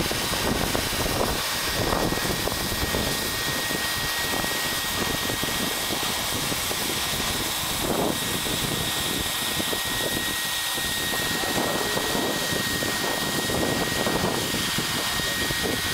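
Leister Varimat automatic hot-air roof welder running as it welds a PVC membrane seam: the steady rush and hiss of its hot-air blower with a thin, high, steady whine.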